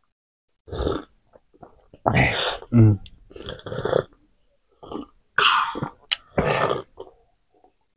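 Noisy sips and swallows of a drink from a glass mug and a ceramic cup, in a string of short separate bursts. There is a brief throaty voiced sound, like a small burp, about three seconds in.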